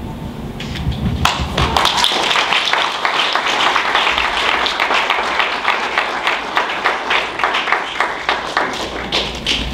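Audience applauding: a spread of hand claps that starts about a second in and carries on steadily.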